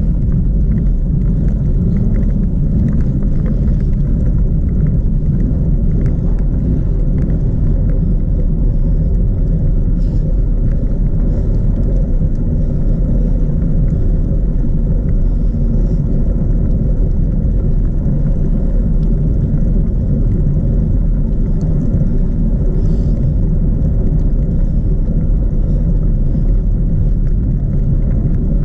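Steady low wind rumble buffeting the microphone of a bicycle-mounted action camera on a downhill road descent.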